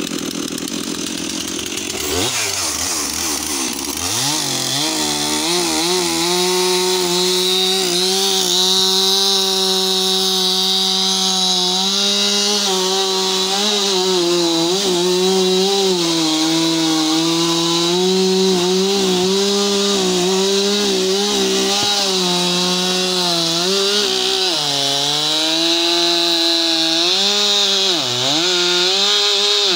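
Stihl MS 362 two-stroke chainsaw with a Rapid Duro carbide chain, cutting through a crib of acacia (black locust) logs. The throttle goes up and down during the first few seconds, then the saw holds at full throttle, its pitch sagging briefly now and then as the chain bites into the wood.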